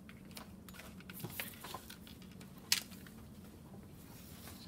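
Pencil drawing on paper: faint scattered scratchy strokes and taps, with one sharper tap a little over halfway through, over a faint steady hum.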